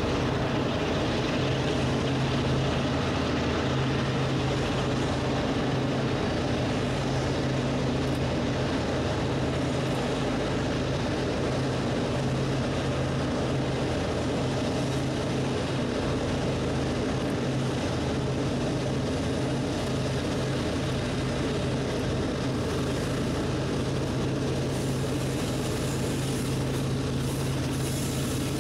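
Diesel locomotives, a GE ES44AC leading a GP38-2, droning steadily with a low engine hum as the potash train approaches.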